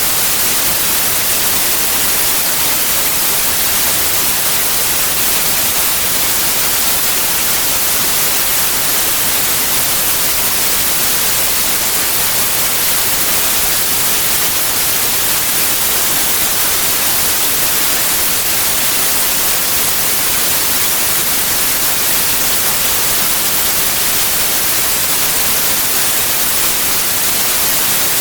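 Steady white noise: an even hiss, strongest in the high range.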